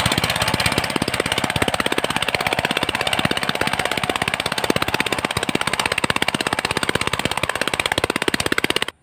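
VST Shakti 130 DI power tiller's single-cylinder diesel engine running under load, a rapid, even chugging, as the tiller is driven on cage wheels through a flooded paddy field. It cuts off abruptly at the end.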